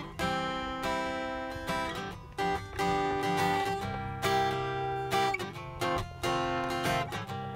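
Background music: acoustic guitar strumming chords, changing chord every second or two.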